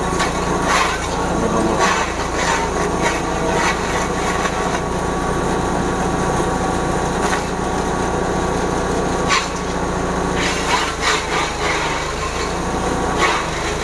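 Engine-driven grass chopper (forage chopper), its diesel engine running at steady speed while a mix of grass and leafy browse is fed in and chopped, giving a run of irregular crunches and rattles over the engine's hum.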